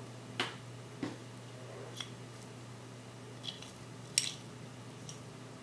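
A few faint, sharp clicks and taps of tweezers and small watch parts being handled at the bench, irregular, the sharpest about four seconds in.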